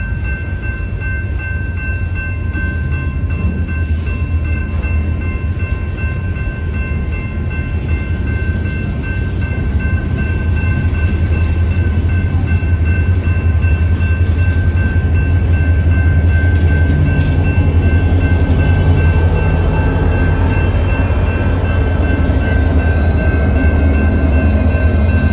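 Freight train rolling slowly through a railroad grade crossing, a steady low rumble of cars on the rails, while the electronic crossing bell rings steadily. The rumble grows louder about halfway through, and near the end the diesel engines of two Union Pacific road-switcher locomotives pass close by.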